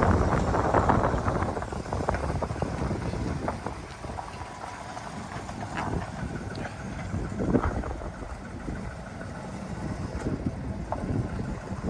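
Wind buffeting the microphone: a gusty rumble, loudest in the first couple of seconds, then easing.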